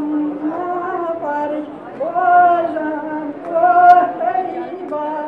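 An elderly woman's solo voice singing a slow devotional song, holding long notes, with no instruments.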